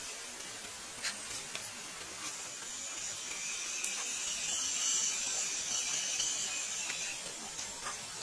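Electric motor and gearbox of a 1/12-scale MN-91 Land Rover Defender RC crawler whining as it drives through mud and wades a shallow stream, with water splashing around its wheels. The whine grows louder in the middle as the truck comes close.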